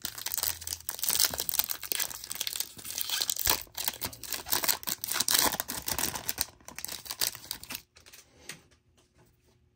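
A trading card pack wrapper being torn open and crinkled by hand, a dense crackling that dies down to faint handling sounds about eight seconds in.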